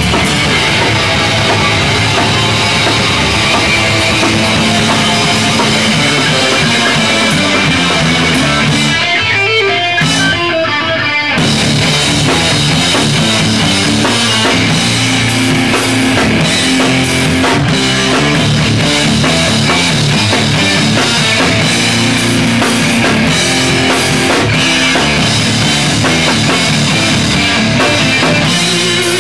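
Live rock band playing loud through amplifiers: drum kit with cymbals, distorted electric guitars and electric bass. About ten seconds in, the drums and bass stop for a second or so while a guitar carries on, then the full band comes back in.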